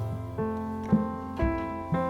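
Background music led by piano-like keyboard notes, a new chord or note about every half second.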